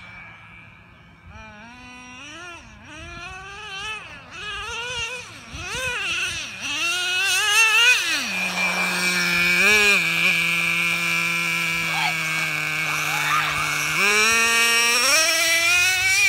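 Nitro-powered Traxxas Jato RC truck's small glow engine revving up and down in quick swoops as it races. It then holds a steadier high note for several seconds that sags slowly, and revs up again near the end. A steady high whine runs underneath.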